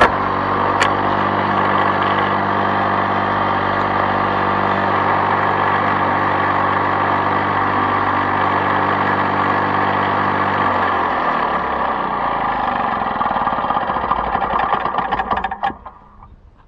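Lawn-Boy two-stroke mower engine running steadily. About eleven seconds in its pitch starts to sink, and the engine winds down and dies near the end. There is a single click about a second in.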